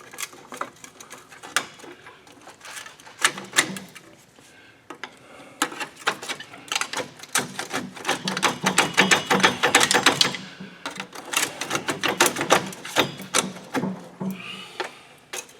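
Steel pry bars working against a 2007 Chevy TrailBlazer's front wheel hub assembly and knuckle: irregular metallic clinks, taps and clanks that come in quick runs in the middle and later part. The hub is stuck because one of its rear mounting bolts is still in.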